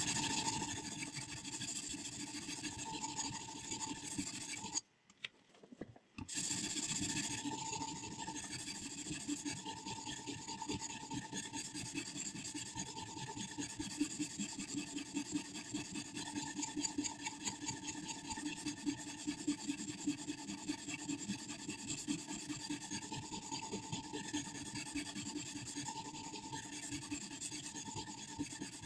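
Sharpening stone stroked rapidly back and forth along a scissor blade on a guided sharpening system: a continuous scraping rasp, pausing briefly about five seconds in and then resuming.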